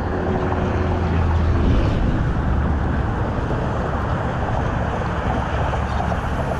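Steady wind noise buffeting the microphone, a low even rush, with small waves washing against the shoreline rocks.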